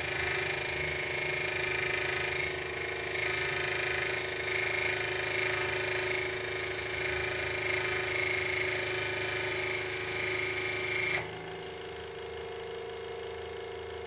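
Hegner scroll saw cutting thin mild steel (about 20 gauge) with a fine-toothed, hardened metal-cutting blade: a steady, harsh, high-pitched rasp from the blade working through the steel. About 11 seconds in it drops suddenly as the cut ends, leaving the saw running on its own with a lower steady hum.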